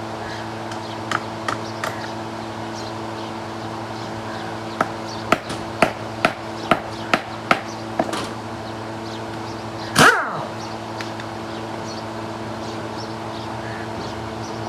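A steady mechanical hum with a run of sharp knocks, about eight of them roughly every half second, and one loud sharp sound with a falling pitch about ten seconds in.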